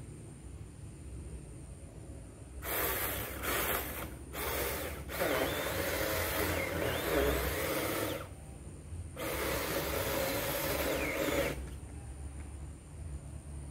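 Bull 4-inch cordless mini chainsaw running in bursts while cutting a water apple tree trunk: three short squeezes of the trigger, then two longer runs of about three seconds each.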